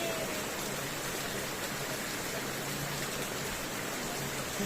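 A mountain stream rushing over rocks, a steady even flow of water.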